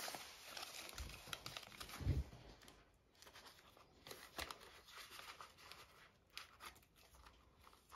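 Faint rustling and crinkling of paper banknotes and clear plastic binder envelopes as cash is handled and tucked into the pockets of a budget binder, with a soft bump about two seconds in.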